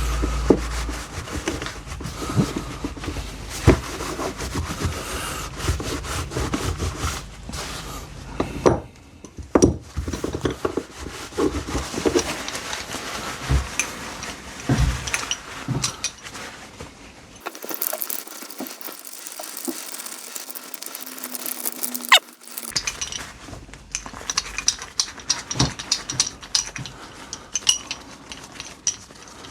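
A cloth rubbing polish over a steel F wrench, with irregular scraping and many sharp clicks and knocks as the metal tool is handled and turned.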